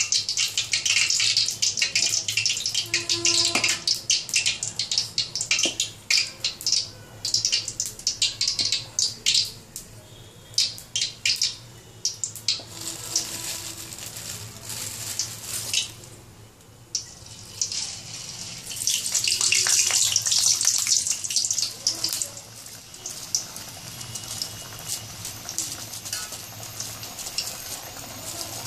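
Hot oil sizzling and crackling in a kadai as rice-flour chekkalu deep-fry, with a louder burst of sizzling about two-thirds of the way in, then a steadier, quieter sizzle.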